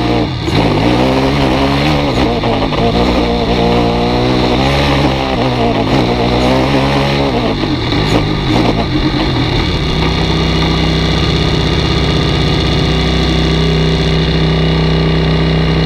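Small open-wheel race car's engine, heard from on board, revving up and down repeatedly as the car accelerates and slows, then settling to a steady idle about ten seconds in.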